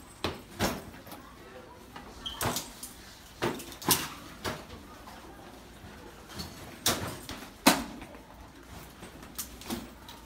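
Schoolchildren's backpacks and bags dropped one after another onto a hard hallway floor: a string of irregular thuds, the loudest late on, over footsteps.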